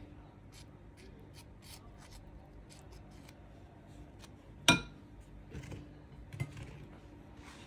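Faint small clicks and scrapes of a metal spoon spreading jam onto a baked cookie, with one sharp ringing clink of metal on crockery a little past halfway and a couple of softer knocks after it.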